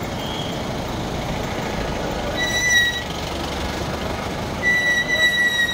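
Steady noise of road traffic on a busy roadside. A high, steady tone sounds twice over it: briefly about two and a half seconds in, and longer near the end.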